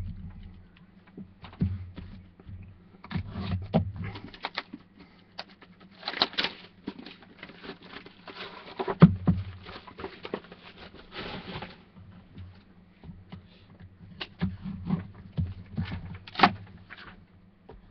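Hands pulling shrink-wrapped trading-card boxes out of their outer box: plastic and cardboard rustling in irregular patches, with scattered taps and knocks, the sharpest about nine seconds in and near the end. A steady low hum runs underneath.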